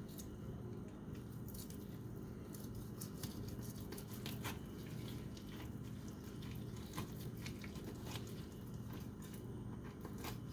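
A knife cutting through a seared ribeye with a crusty outside, giving scattered short crackles and taps against the board. A steady low hum runs underneath.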